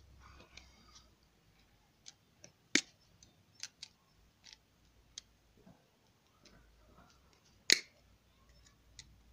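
Small clicks and taps of hand tools from a tyre puncture repair kit, pliers and the T-handle plug insertion tool, being handled, with two sharp louder clicks about five seconds apart.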